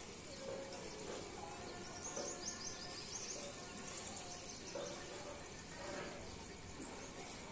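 Early-morning village ambience: a steady background hiss with small birds chirping, including a quick run of high chirps about two to three seconds in.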